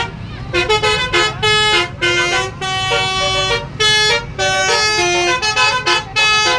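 Basuri telolet horn, a set of multi-trumpet musical horns, played as a quick tune of short notes that step up and down in pitch, with brief gaps between phrases.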